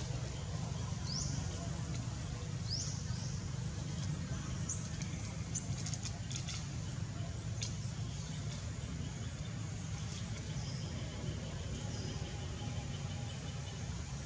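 Steady low rumble with a few short, high, rising animal chirps in the first three seconds and fainter high calls later on, plus a few light clicks around the middle.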